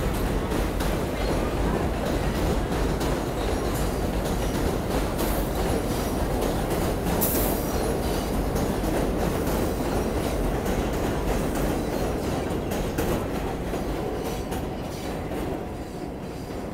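R188 subway train running on elevated track: a steady rumble of wheels on rail with rapid clicks over the rail joints. A brief sharp high-pitched noise comes about seven seconds in, and the sound fades over the last few seconds as the train pulls away.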